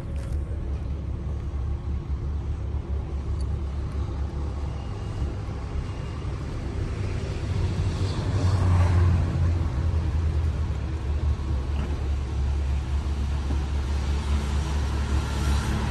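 Low, steady engine rumble with a hum of several steady low tones, swelling louder about eight seconds in.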